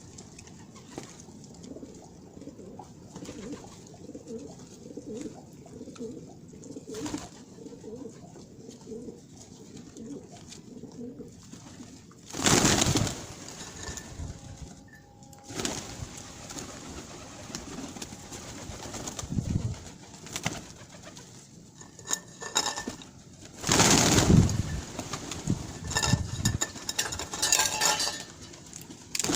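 Pigeons cooing, a soft repeated low call in the first half. From about halfway on, several short, loud noises break in, the biggest about halfway through and two-thirds of the way through.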